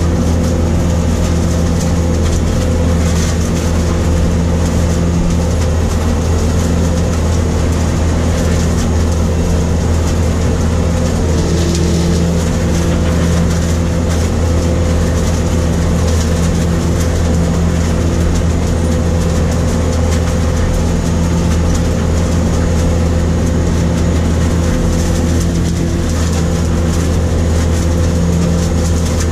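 New Holland grape harvester running steadily as it works along a vine row, heard from inside the cab: a constant heavy engine and machinery drone with a strong low hum and a few steady tones above it.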